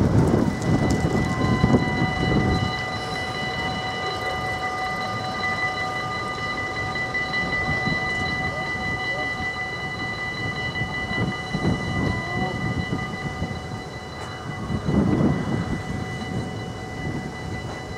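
Dutch level-crossing warning bells start about a second in and ring steadily as the half barriers come down. Passing road traffic adds a low rumble near the start and twice more later on.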